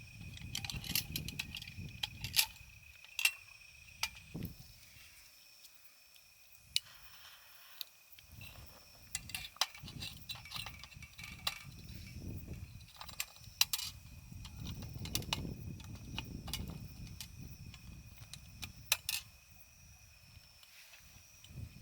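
Scattered small clicks and clinks of camping gear being handled, over a steady high insect trill, with low gusts of wind on the microphone coming and going.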